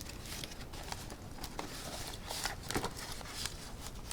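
Packaging being handled: rustling with scattered light clicks and taps as plastic coin capsules (airtights) and packing material are moved about, a few sharper clicks standing out.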